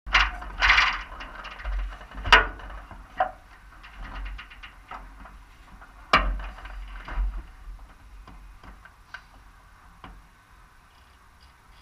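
Scattered clunks, clicks and rustling as a pilot climbs down into the front seat of an open RV-4 cockpit and settles in, with two sharp knocks about two seconds in and about six seconds in; the handling noise dies away near the end.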